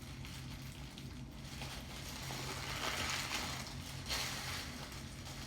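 Wet rustling and squishing of hands working hair dye through hair, louder around the middle, over a steady low hum.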